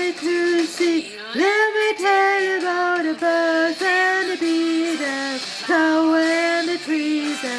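A high voice singing a melody of held notes in short phrases, with brief breaks between them.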